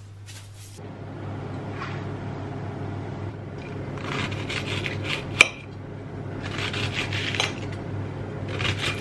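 Salt briefly shaken from a canister into a pot of water, then a kitchen knife slicing an onion on a plate: runs of crisp cutting strokes, with a sharp click of the blade hitting the plate about halfway through.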